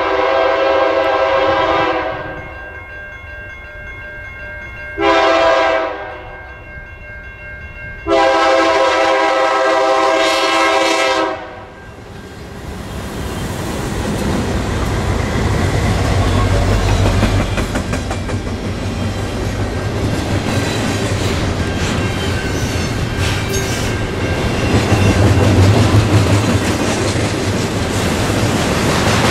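The horn of a BNSF GE Dash 9-44CW diesel locomotive sounds a long blast, a short one and another long one. After that the locomotives and a long intermodal train of double-stack containers and trailers roll past, with a low engine rumble and wheels clattering on the rails.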